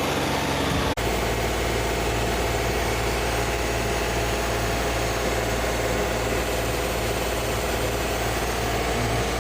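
John Deere 3039R compact tractor's three-cylinder diesel engine running steadily under hydraulic load with the air conditioning on, which takes about 2.5 to 3 horsepower from it. A brief dropout about a second in.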